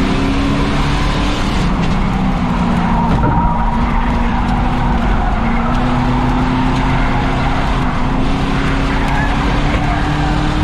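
Race car engine running hard at a fairly steady pitch, heard from inside the car, with loud tyre and road noise underneath.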